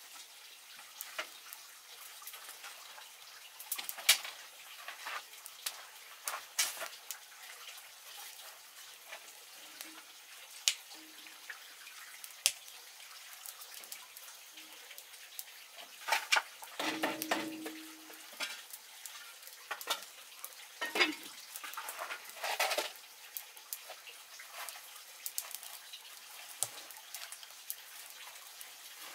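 Firewood crackling and popping in open stove fires, irregular sharp snaps. A few louder knocks and scrapes come about halfway through and again a few seconds later.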